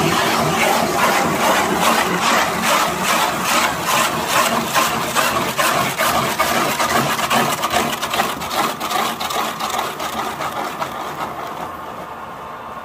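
Woodworking lathe spinning a log while a cutting tool hollows out its inside for a log beehive: a loud, rhythmic scraping of steel on wood several times a second. It fades, and near the end only the lathe's steady running hum is left.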